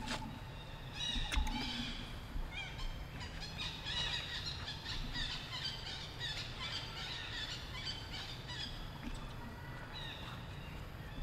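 Many short, high chirping calls, each falling in pitch, in quick overlapping succession, over a low steady rumble.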